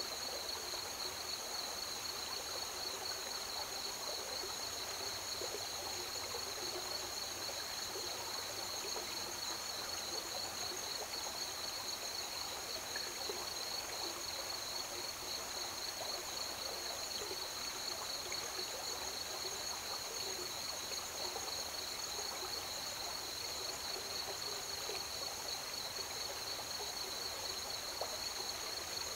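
River water running and trickling, under a steady, high-pitched chorus of crickets in two constant bands of pitch.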